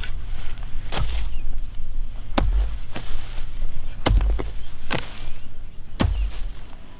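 Hand hoe chopping into dry, grassy soil while digging planting holes: six blows, roughly one a second, each a dull thud with a crackle of dry grass and earth.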